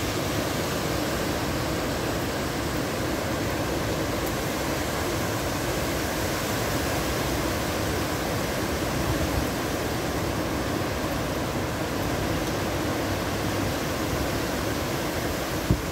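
Hurricane wind and rain making a steady rushing noise. A single short knock comes near the end.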